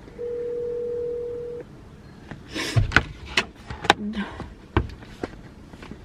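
A phone call's steady ringing tone, heard once for about a second and a half through a phone speaker while the call goes unanswered. It is followed by a string of sharp clicks, knocks and rustling from handling things in the car.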